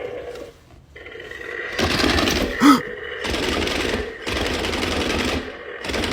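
Motorised toy monster-truck box buzzing and rattling in bursts of about a second each, shaking itself after its key is turned, with one brief loud pitched sound partway through.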